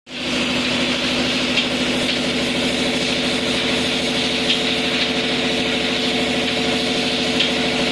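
Wire loop bending machine running: a steady mechanical hum with a fast, even pulsing and a higher hiss, with a few light clicks every second or two.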